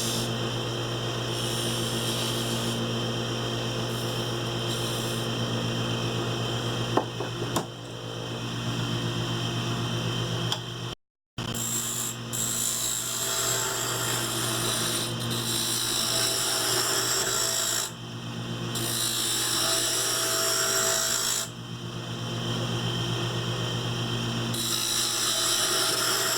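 Wood lathe running with a steady motor hum while spinning Alaska yellow cedar is worked by hand, a rasping hiss that rises and falls in several spells. There are two sharp knocks about 7 seconds in and a brief drop to silence about 11 seconds in.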